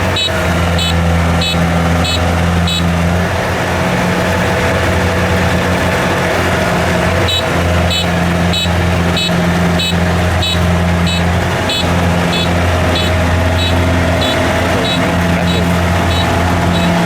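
Kubota DC70 combine harvester's diesel engine running steadily with a low drone. A regular high ticking, about two to three a second, comes and goes over it.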